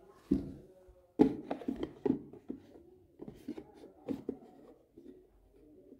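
Cardboard smartphone box being closed and handled by hand: scraping and a string of soft knocks as the lid goes on, loudest a little over a second in, then lighter taps and rubbing on the box.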